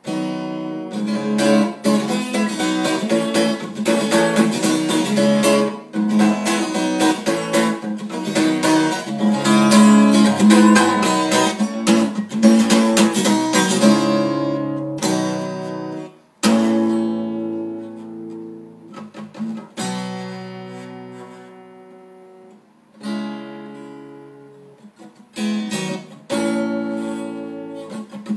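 Acoustic guitar strummed rapidly in an acoustic punk-blues style for about the first half. Then a few single chords are left to ring out and fade, and quicker strumming starts again near the end.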